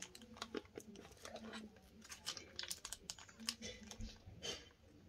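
Faint, irregular crinkling and clicking of toy packaging being handled and pulled at as hands struggle to open it.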